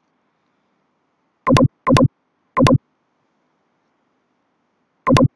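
Four short electronic tones: three in quick succession about a second and a half in, and one more near the end.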